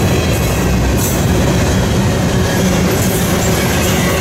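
Double-stack container well cars of an intermodal freight train rolling past close by: a steady, loud noise of steel wheels running on the rails.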